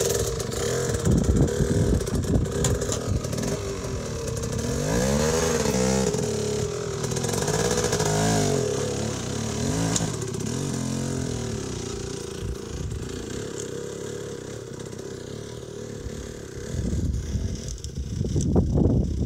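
Dirt bike engine revving up and down again and again as the rider feathers clutch and throttle up a steep rock garden, fading as the bike climbs away, with a louder stretch near the end.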